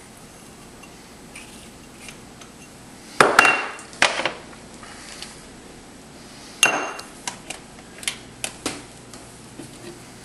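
Containers and a measuring cup knocking and clinking against a stainless steel saucepan as sauce ingredients are dumped in: a few sharp, briefly ringing clinks about three to four seconds in, another near the middle, then a string of lighter clicks.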